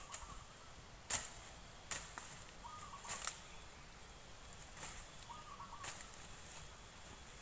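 A sickle hacking through brush off to one side: five sharp chops, irregularly spaced. A short bird call repeats about every three seconds behind them.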